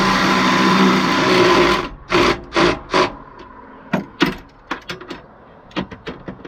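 Power drill running steadily under load as it drives a lag bolt, stopping about two seconds in. Then three sharp metallic knocks and a scatter of lighter clicks as tools and fittings are handled.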